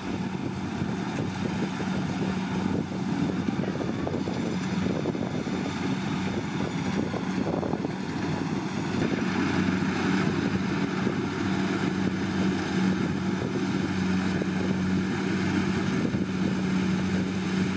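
Kubota DC70 Plus rice combine harvester's diesel engine and threshing drum running steadily under load while it cuts rice, a constant hum under a mechanical rattle. It grows a little louder about halfway through.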